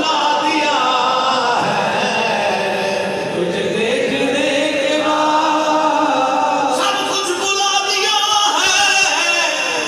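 Men's voices singing and chanting together, with long held notes that glide up and down.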